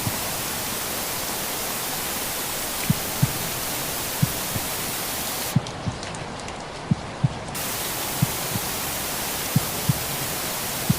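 Slow recorded heartbeat, pairs of low thumps (lub-dub) about every 1.3 seconds, over a steady rain-like hiss of white noise. Near the middle the higher part of the hiss cuts out for about two seconds, leaving a duller rumble, then returns.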